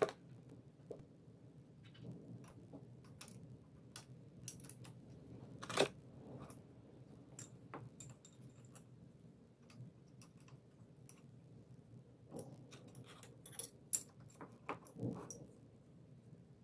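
Faint, scattered clicks and light taps, like small hard parts being handled. One louder knock comes about a third of the way in, and a few more cluster near the end.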